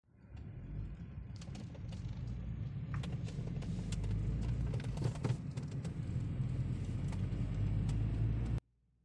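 Low, steady road and engine rumble heard inside a moving car's cabin, with a few light clicks and rattles. It cuts off suddenly near the end.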